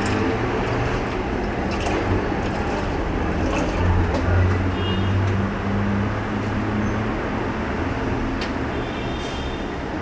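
LG top-load washing machine running its final rinse cycle: a steady low motor hum over a wash of noise, with a few faint clicks.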